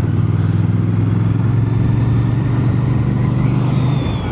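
Royal Enfield Bear 650's 648 cc parallel-twin engine running at a steady pitch while the motorcycle is ridden along.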